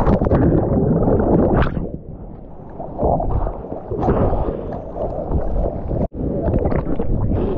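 Ocean water rushing and splashing around a surfer's GoPro, with wind buffeting the microphone. The noise eases for about a second a couple of seconds in and cuts out for an instant a little after six seconds.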